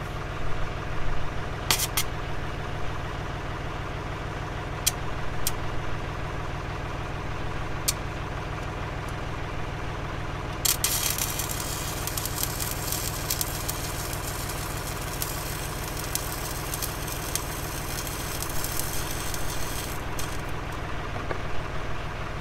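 Stick welding: a few short arc strikes, then from about ten seconds in a steady crackling arc for about ten seconds as a bead is run around the lift shaft to hold the part a locking ring failed to hold. A steady engine hum runs underneath throughout.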